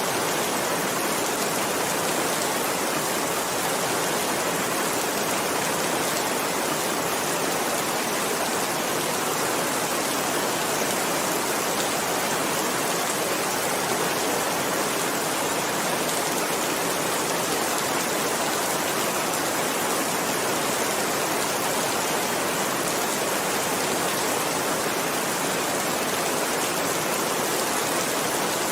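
Heavy rain falling steadily, a dense even hiss with no separate drops, thunder or changes standing out.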